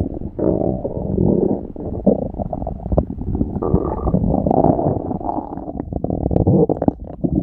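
Stomach growling: low, continuous gurgling and rumbling with many quick little pops and bubbles.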